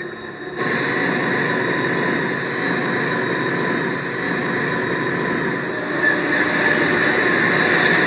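Diesel locomotives' steel wheels grinding and squealing on the rails under hard braking: a loud rushing roar with a steady high squeal. It cuts in abruptly about half a second in and grows a little louder near the end.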